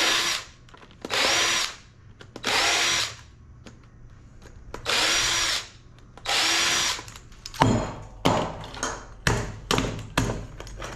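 A power drill run in five short bursts, each spinning up quickly and lasting under a second, while parts of an LED lamp are being taken off. After about seven and a half seconds the drill stops and a quick run of sharp knocks and clicks follows, about three a second.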